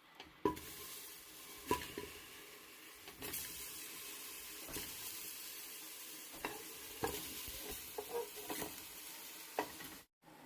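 Food sizzling in hot oil in a cooking pot while a metal spoon stirs it, clinking against the pot about nine times. The sizzle cuts off suddenly near the end.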